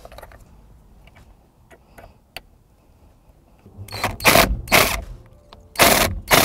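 Ratchet tightening the steering wheel's centre bolt in five short bursts, starting about four seconds in, after a few faint clicks.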